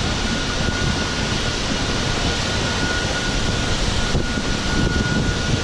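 Steady rumble and rush of a fishing boat's engine running at sea, with a thin high whine held throughout.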